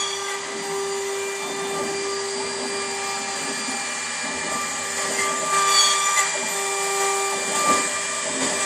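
Denford CNC mill's spindle running at about 23,000 rpm, its cutter machining a wooden model car body, with a steady high whine over the noise of cutting.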